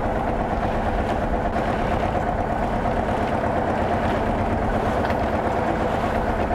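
A wooden fishing boat's engine running steadily.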